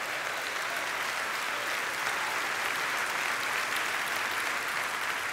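Congregation applauding steadily, a dense even clapping from many hands.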